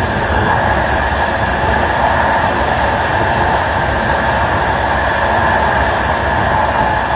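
Steady rolling noise of an express passenger train's wheels on the rails, heard from the back of its last carriage: an even rumble and hiss with no separate rail-joint clicks.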